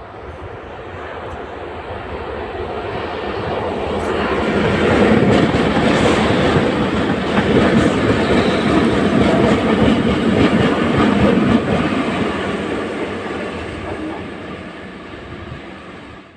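A string of coupled PKP Cargo ET42 "Czapajew" twin-section electric locomotives rolling past, wheels clattering over the rails. The sound builds as they approach, is loudest for several seconds in the middle, fades as they pull away, and cuts off abruptly at the end.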